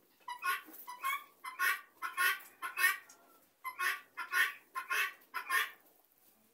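Helmeted guineafowl giving a run of harsh, rasping calls, about two a second, with a short break about halfway through.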